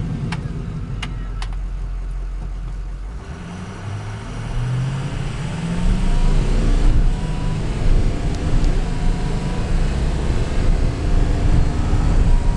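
A 2005 Ford F-350's 6.0 L Power Stroke turbo diesel V8 heard from inside the cab while driving. The engine note rises about four seconds in as the truck accelerates, then runs on louder with road noise. There are a few light clicks in the first two seconds.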